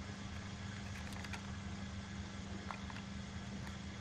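Car engine idling, a steady low hum heard from inside the cabin, with a few faint ticks.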